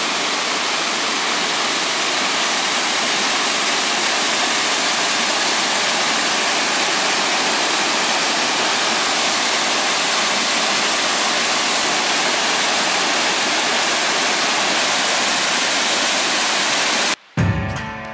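Mountain stream and waterfall cascading over boulders, a steady full rush of water. About a second before the end the water sound cuts off and music begins.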